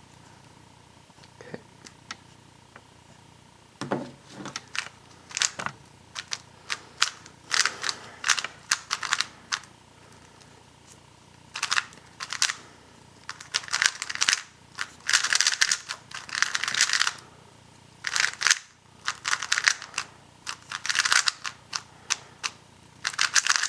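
Weilong GTS V2 M magnetic 3x3 speedcube being turned: quick runs of plastic clicks and clacks as the layers snap into place, broken by short pauses. The cube is heavily lubed, and the lube is still breaking in.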